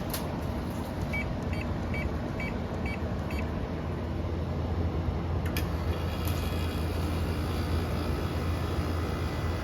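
2004 Daewoo DWC-054R window air conditioner starting up: six short electronic beeps as its control buttons are pressed, then a relay click about halfway through and the fan motor coming on with a steady whine, over a constant low hum.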